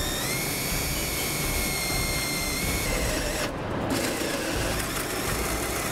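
Power drill with a half-inch spade bit boring a hole through a polycarbonate panel: a motor whine that rises as it spins up, runs steady, and drops out briefly about three and a half seconds in before going on.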